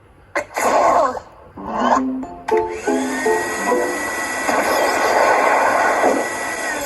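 Cartoon soundtrack: a character's short vocal outbursts, fitting a sneeze, in the first two seconds. Then a few musical notes and a long held chord of music over a steady rushing noise that cuts off near the end.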